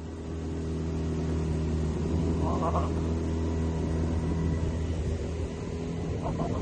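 Dinghy outboard motor running steadily at a low, even speed.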